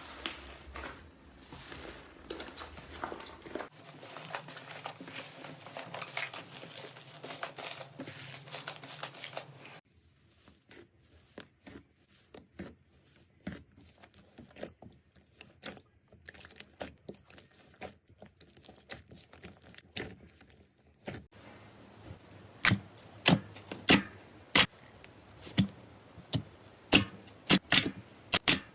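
Slime being squeezed, stretched and poked, making crinkling, crackling and popping sounds. The sounds change from a dense crackle to scattered small pops, then to a run of loud, sharp cracks in the last third.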